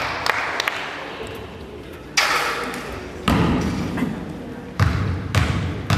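A basketball bouncing on a hardwood gym floor: about five single thuds at uneven intervals, each ringing on in the hall.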